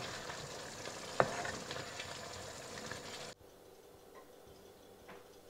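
Potato curry simmering and sizzling in a frying pan, with one sharp knock about a second in. The sizzle cuts off abruptly a little past three seconds, leaving a quieter stretch with a few faint taps as the potatoes are spooned out of the pan.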